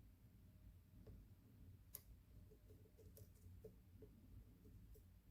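Faint, scattered small metallic clicks of a hook pick probing and lifting the pins of a five-pin euro cylinder held under a tension wrench. The clearest click comes about two seconds in, with a few more in the last three seconds.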